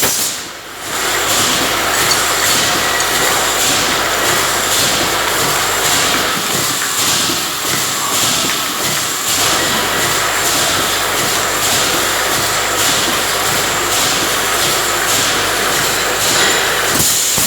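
Aerosol filling machine running with a steady rushing noise, starting about a second in and cutting off just before the end, with sharp clicks around the start and stop.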